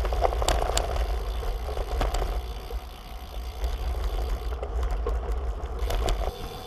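Road bike rolling fast over a rough dirt and gravel track: tyres crunching and the frame and parts rattling, with scattered sharp clicks from bumps over a steady low rumble. The rumble eases a little near the end.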